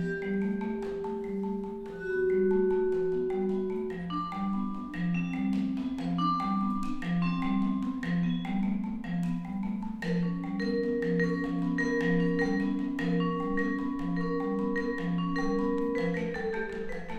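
Solo vibraphone played with mallets: a steady, repeating low figure of two alternating notes under long, ringing higher notes.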